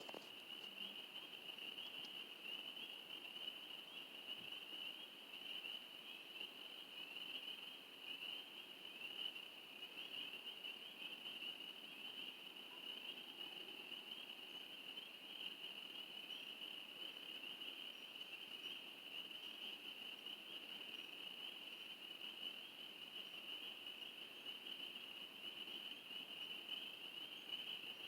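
A chorus of calling night animals, heard as a steady high-pitched trill that never breaks, with faint short higher notes joining in during the second half.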